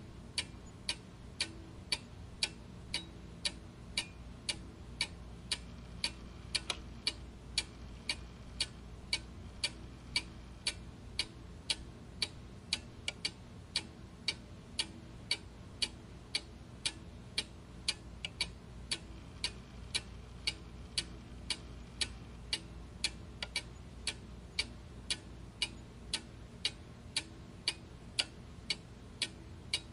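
A clock ticking steadily, with crisp, evenly spaced ticks at a little over two a second over a faint low hum.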